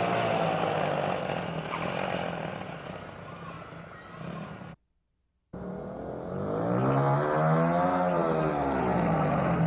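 Small motorcycle engine running steadily and fading as it rides away, then cut off by a moment of silence about five seconds in. After that, a motorcycle engine comes closer and gets louder, its pitch rising and then falling as it revs.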